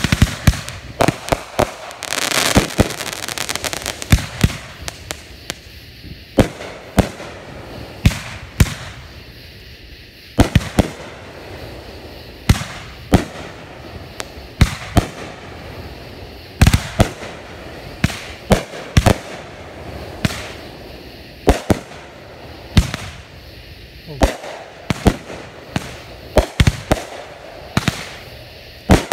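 Consumer firework cakes firing aerial shots: a long irregular run of sharp bangs, roughly one to two a second, as the stars burst overhead.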